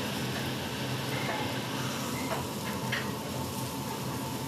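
Octopus, squid and fish sizzling on a commercial grill, a steady hiss with a low hum under it and a few faint metallic clicks about two to three seconds in.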